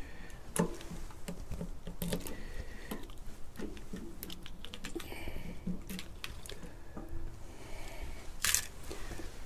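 Scattered light clicks, taps and rustles of hands handling a motorcycle fuel tank's filler cap and the parts around it, with one brief louder scrape about eight and a half seconds in.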